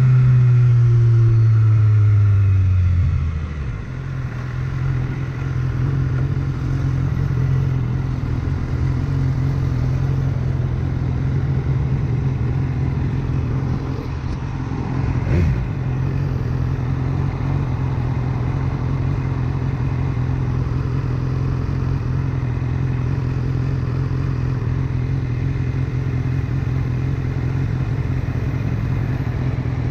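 BMW S1000R's inline-four engine, its revs falling over the first few seconds as the bike slows, then idling steadily at a standstill. A single short knock about halfway through.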